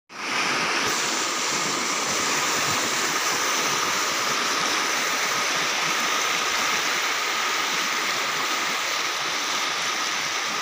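Muddy flash-flood water rushing across flat ground, a steady, unbroken rushing noise.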